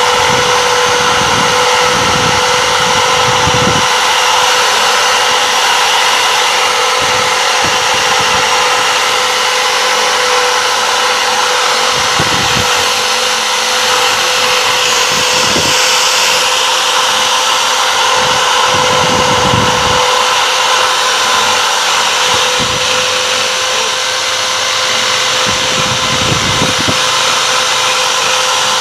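Electric hand drill running steadily with a grinding bit, grinding inside the port of an air-cooled motorcycle cylinder, a constant motor whine with uneven low rumbles as the bit bears on the metal.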